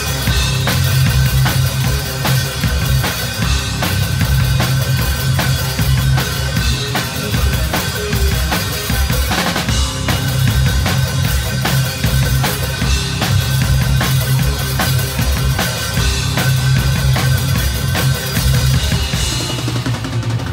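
Death metal and crust band playing live at full volume: the drum kit played fast with bass drum, snare and cymbals, over a steady heavy wash of amplified guitar and bass, heard from on stage right beside the drums.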